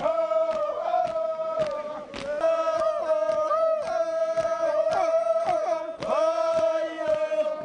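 Papua New Guinea highlands sing-sing chant: a group of voices chanting in unison, holding one long note and sliding in pitch at the ends of phrases, over a steady beat about twice a second.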